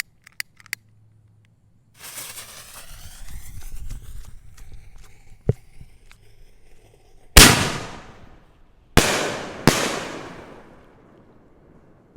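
Aerial firework shells (6-inch double-break canister shells) going off. Crackling and fizzing comes first, then one sharp crack, then three loud booms, each dying away slowly in echo. The first boom, a little past the middle, is the loudest.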